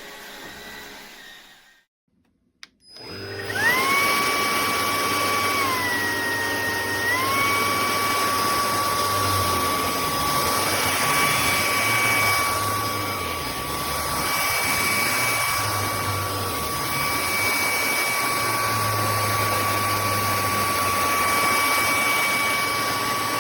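Hoover ONEPWR WindTunnel Emerge cordless stick vacuum switching on about three seconds in. Its motor whine rises quickly to a steady high pitch. The pitch dips lower for a moment soon after, then the motor runs steadily with a rushing airflow hiss.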